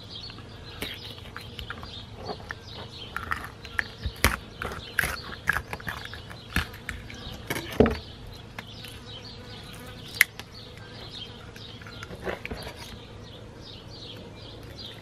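Snapper being gutted with a filleting knife on a plastic barrel lid: irregular clicks, taps and wet handling sounds as the knife cuts and the guts are pulled out, with a few sharper knocks of knife or fish against the lid.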